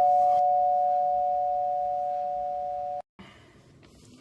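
Two-tone ding-dong doorbell chime ringing out, both notes fading slowly together until they cut off abruptly about three seconds in.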